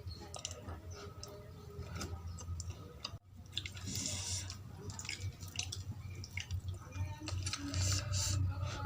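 Close-miked wet mouth sounds of someone eating poori with potato curry: irregular smacks, squelches and small clicks of chewing, with a brief break about three seconds in.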